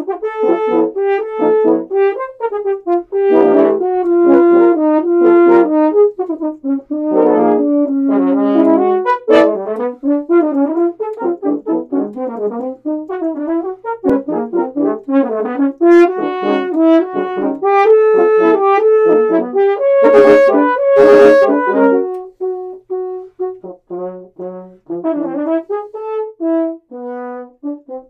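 A quartet of four French horns playing music built on quartal harmonies, with melodic leaps of perfect and augmented fourths. Many short notes move in and out, swelling to a loud held chord about twenty seconds in, then thinning to quieter, sparser notes.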